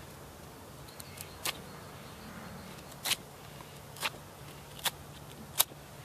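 Gerber Bear Grylls folding knife blade shaving a wooden stick: about seven short, sharp scraping strokes roughly a second apart, the last the loudest.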